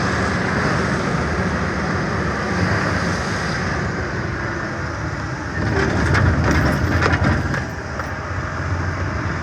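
Truck running, heard from inside the cab: a steady rumble of engine and road noise that swells a little past the middle, with a few light clicks and knocks.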